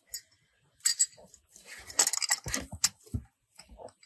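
Irregular clicks, scrapes and light metallic clinks of hands working an oil-fill adapter into the threaded fill hole of a Haldex all-wheel-drive coupling and handling the fill hose, busiest about halfway through.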